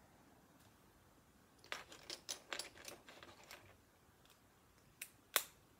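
Plastic Lego pieces clicking and clattering as they are handled and sorted, a quick run of light clicks for about two seconds, then two sharp clicks near the end, the second the loudest.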